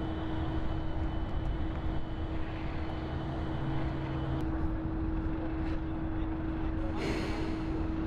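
Diesel locomotive idling: a steady low rumble with a constant hum, and a brief hiss about seven seconds in.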